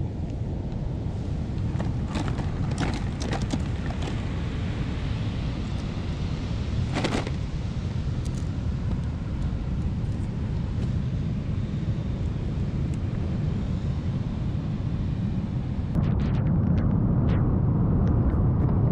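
Steady low outdoor rumble of wind buffeting the microphone, with a few light clicks in the first few seconds and a short rush of noise about seven seconds in. The rumble grows louder near the end.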